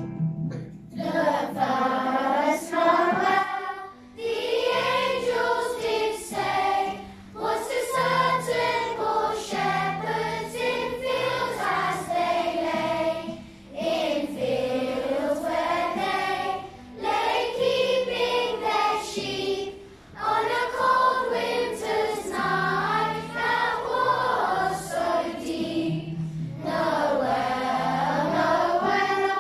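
Primary-school children's choir singing a Christmas carol in unison, phrase by phrase with short breaks between, over a low instrumental accompaniment.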